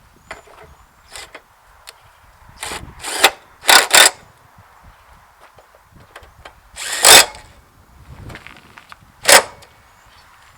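Power tool run in several short trigger bursts, about five, tightening the mower blade bolts back onto the deck.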